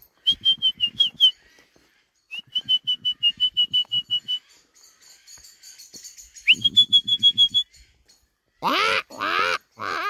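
Bird calling from the tree canopy: three runs of quick repeated high whistled notes, about six a second. Near the end come three loud, lower calls, each about half a second long.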